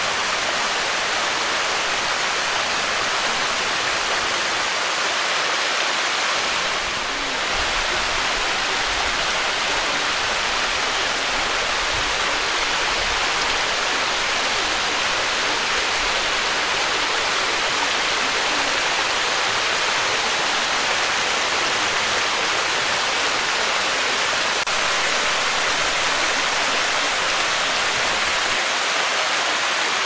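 Small mountain waterfall spilling in thin streams down a steep rock face: a steady, even rush of falling water.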